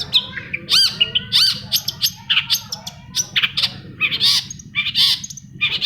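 Long-tailed shrike singing a fast, varied run of short chirps, rising whistled notes and harsher scratchy notes.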